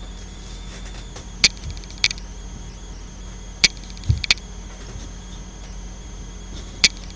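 Oracle card deck being shuffled and cut by hand on a cloth-covered table: a few sharp clicks and taps as the cards are knocked together and set down, with a soft thump about four seconds in, over a steady electrical hum.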